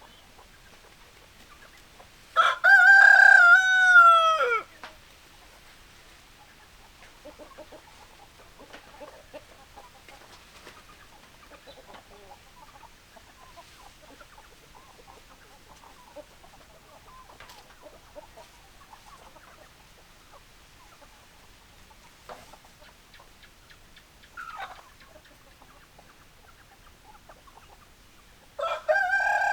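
Rooster crowing twice, each crow about two seconds long with a falling end, once a couple of seconds in and again near the end. Between them, quieter scattered clucking and a short call.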